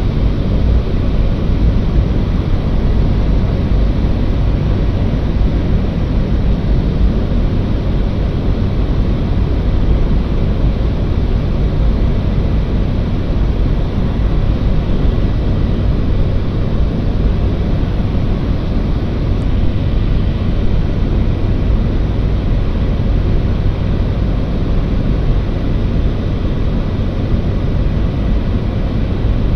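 Small propeller aircraft in flight: the engine and propeller make a steady, loud drone with a constant low hum underneath.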